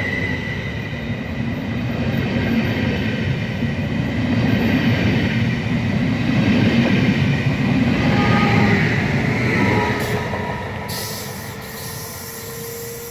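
Stadler KISS double-deck electric multiple unit pulling away along the platform. Its wheels rumble on the rails with thin high tones above, growing louder as the cars pass, then fading from about ten seconds in as the train draws away.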